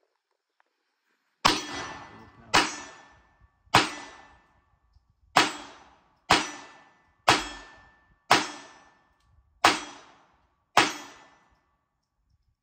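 Nine pistol shots from a Glock 42 (.380 ACP), fired at a slow, even pace of about one a second, each ringing off in a short echo. The string runs through without a pause or hitch, the magazine feeding every round.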